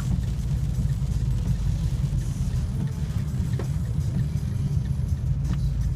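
Steady low rumble of a car's engine and road noise heard from inside the cabin, with a couple of faint ticks.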